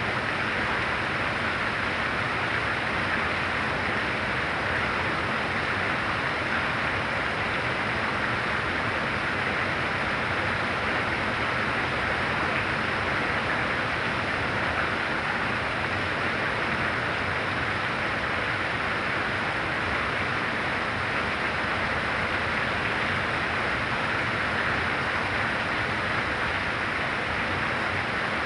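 Heavy rain falling steadily: a dense, even hiss with no separate drops or breaks.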